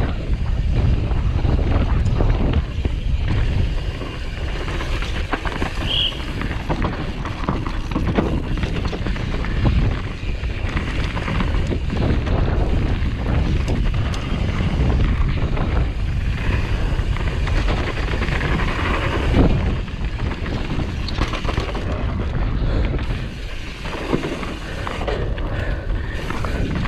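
Downhill mountain bike ridden fast over rough trail: steady wind buffeting on the action-camera microphone, with a constant rattle and many short knocks from the bike over rocks and roots.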